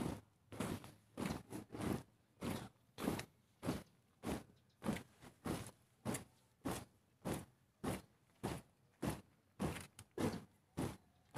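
Marching squad's boots striking a gravel field in unison, an even beat of a little under two steps a second.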